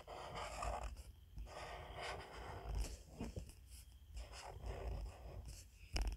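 Marker drawing on paper close to the microphone: short stretches of rubbing and scratching strokes, with a couple of light taps.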